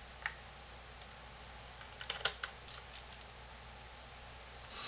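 A few light clicks and taps of a Phillips screwdriver and fingers on a Dell Inspiron E1505 laptop's plastic base while the optical-drive screw is undone. There is one click just after the start and a cluster of clicks about two to three seconds in, over a faint steady hum.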